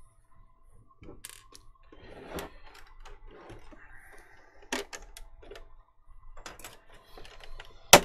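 Plastic console casing being handled and turned over on a wooden workbench: scattered light knocks, clicks and rubbing. A sharp plastic click comes just before the end as a small cover piece comes off.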